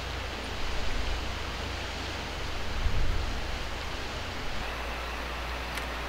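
Wind on the microphone over a steady outdoor hiss, with two stronger gusts of low rumble, about half a second in and around three seconds.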